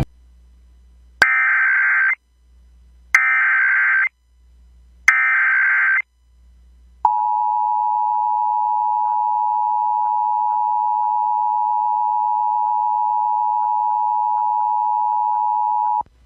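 Emergency Alert System SAME header: three bursts of digital data tones, each about a second long, followed by the two-tone EAS attention signal (853 and 960 Hz) held steady for about nine seconds. It signals a child abduction emergency (Amber Alert) about to be read out.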